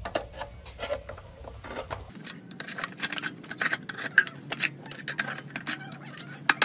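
A screwdriver tapping, clicking and scraping on the rusted metal filler cap of an old diesel engine's fuel tank, in irregular sharp clicks.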